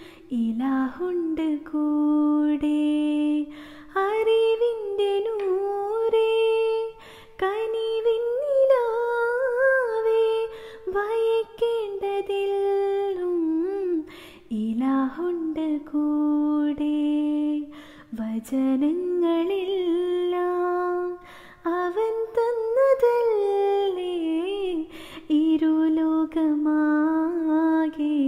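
A woman singing a Mappila song solo and unaccompanied, in long held notes with gliding ornaments, with short breaths between phrases.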